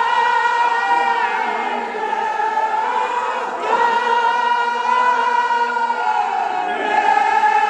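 A chorus of men singing a Kashmiri marsiya, a Shia elegy, together in long held notes, many voices on one melody.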